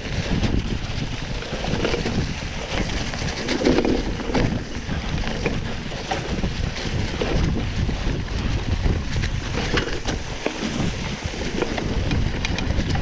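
Wind rushing over the microphone of a moving rider, with a steady low rumble and frequent small clicks and rattles, as from riding over a rough trail.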